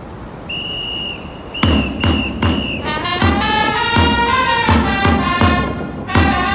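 Japanese baseball cheer-squad band: a high whistle is held briefly, then blown three times in short blasts in time with deep bass-drum strikes, and about three seconds in trumpets strike up a cheer-song melody over a steady drum beat of about two strokes a second.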